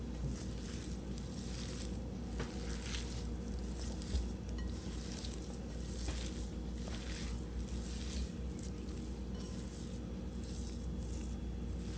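A hand kneading and rubbing crumbly fresh chhena mixed with flour and semolina in a glass bowl: soft squishing and rustling in repeated strokes, roughly one a second.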